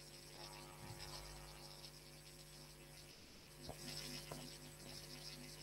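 Near silence: a faint steady electrical hum with hiss, and a couple of faint clicks a little under four seconds in.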